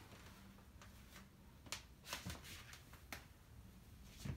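Faint handling sounds: a few short rustles and clicks as jersey T-shirt fabric is pulled and moved about, over a low steady hum.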